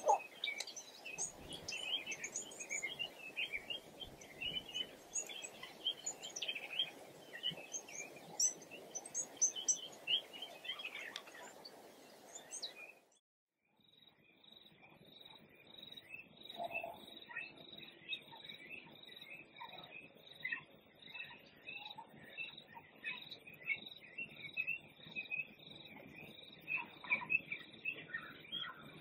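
Natural background of many small birds chirping and calling. About 13 seconds in, the sound cuts out for a moment, and a different background of steadily repeating high chirps takes over.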